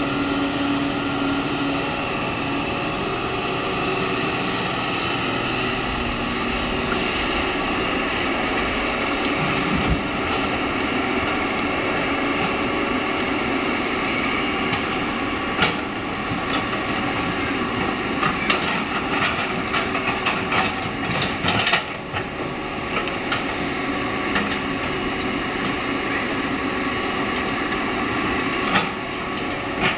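Hitachi excavator's diesel engine running steadily under load as it digs and swings. From about halfway through, it is joined by a series of sharp clanks and knocks from the bucket working soil and stones, with one more knock near the end as the bucket swings over the dump truck's bed.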